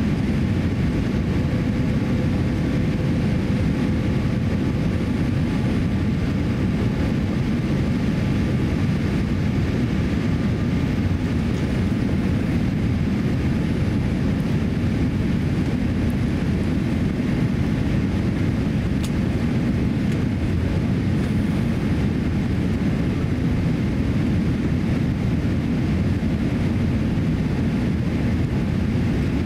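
Steady low roar inside the cabin of a Boeing 787-8 airliner on final approach: its Rolls-Royce Trent 1000 engines and the rush of air past the fuselage, heard from a window seat over the wing.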